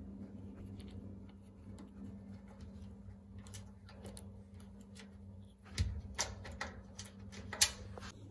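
Light ticking and clicking as a dryer is taken apart by hand, with a few sharp knocks and clacks of its metal panels and parts in the second half, the loudest near the end, over a steady low hum.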